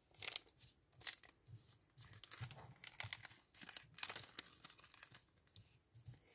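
Paper stickers and their plastic packet rustling and crinkling as they are handled, in many short, irregular scrapes and rustles.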